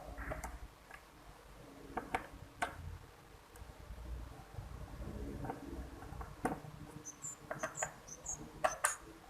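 Scattered small clicks and ticks of a screwdriver working on a laptop's plastic bottom case while its screws are taken out. A few short high-pitched chirps come near the end.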